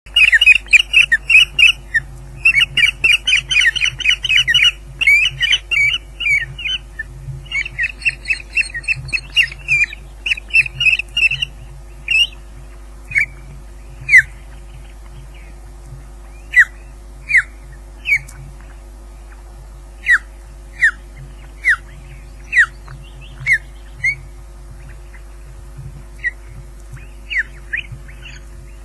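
Osprey calling: a fast run of loud, sharp, falling whistles for about the first eleven seconds, then single falling whistles roughly once a second that thin out toward the end.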